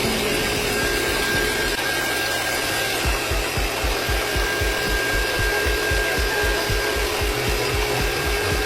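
Small electric motor of a homemade miniature machine running steadily with a whine. About three seconds in, a regular low thumping starts, roughly four beats a second, and keeps going.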